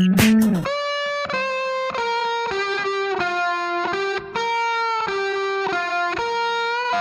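Background music: a funk-style beat drops out within the first second, leaving a lone electric guitar playing a melody of held, sliding notes with a distorted tone.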